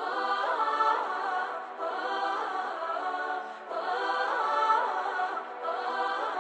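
Choir-like a cappella vocal phrase, thin and with no bass, repeating about every two seconds as a looping intro.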